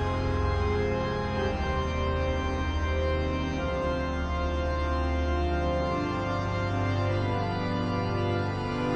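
Background music: sustained chords over a low bass line that changes note every second or two.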